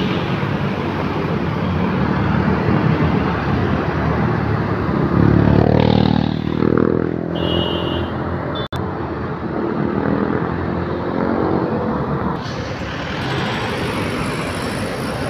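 Road traffic of cars and motorcycles with a Pandawa 87 intercity bus passing close, its diesel engine loudest about five to seven seconds in.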